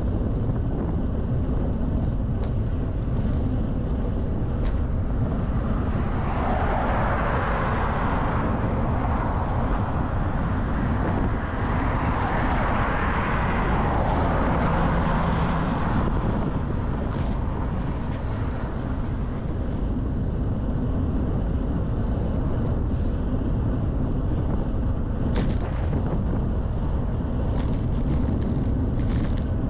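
Wind rushing over a handlebar-mounted GoPro Hero 11 microphone as a bicycle rides along a road. Cars pass twice, swelling up and fading away, the first about six seconds in and the second about twelve seconds in.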